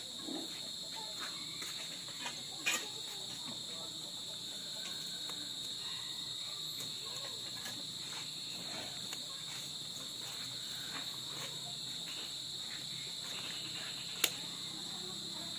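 Steady night chorus of crickets, a continuous high trill, with two sharp clicks: one a few seconds in and a louder one near the end.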